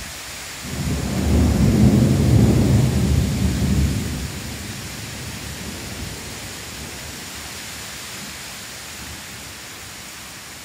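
A low rumble of thunder starts about a second in, swells, then fades after about three seconds, over the steady hiss of heavy rain.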